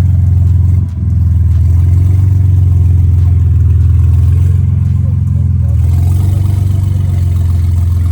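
BMW M3 twin-turbo straight-six idling through a loud aftermarket exhaust, a steady deep drone with a brief dip about a second in. It is just so loud.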